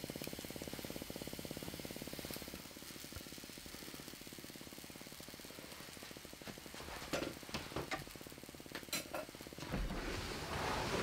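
Electric hand mixer running with a fast, even pulsing that eases off after a couple of seconds, then several light clinks, and a louder, rougher run near the end.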